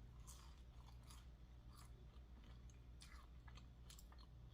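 Faint close-up chewing of food, soft mouth clicks and smacks about once a second over a low steady hum.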